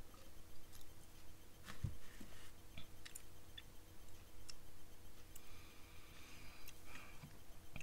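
Faint mouth sounds of someone tasting a sip of cider: small wet clicks and lip smacks. A drinking glass is set down on its metal coaster with a light knock about two seconds in.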